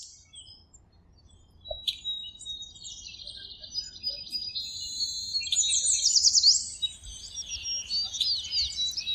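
Birdsong: high-pitched chirps, trills and quick rising sweeps from several birds. It begins about two seconds in and is loudest in the middle.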